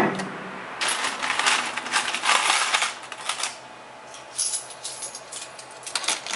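Pachislot medals clattering and clicking in rapid runs of metal-on-metal rattles, heaviest in the first few seconds, with shorter bursts later.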